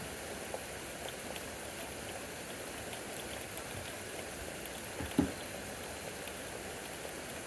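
Heavy rain falling steadily in a thunderstorm downpour, an even hiss of drops, with one short louder knock about five seconds in.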